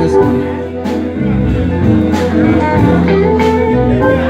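Live blues band playing a slow blues with electric guitar, keyboard and drums. A sharp drum hit lands about every 1.3 seconds under held melody notes.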